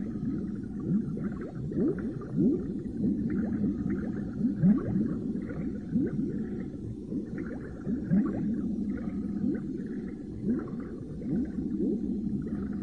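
Cartoon underwater sound effect: continuous bubbling and gurgling, made of many short, quick rising and falling pitch glides.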